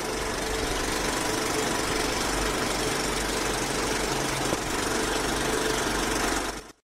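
Steady mechanical whirring noise with a faint hum, a sound effect that cuts off abruptly near the end.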